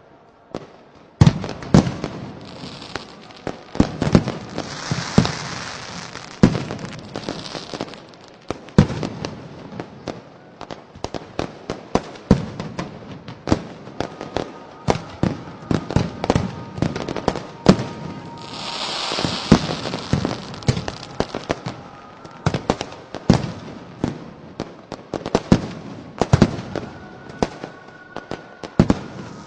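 Festival fireworks and firecrackers going off: a dense, irregular run of sharp bangs and pops, with bursts of hissing crackle at about 5 seconds and again around 19 seconds.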